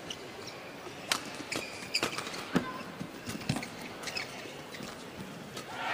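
Badminton rally: sharp racket strikes on the shuttlecock at irregular intervals, mixed with the short squeaks of players' shoes on the court floor.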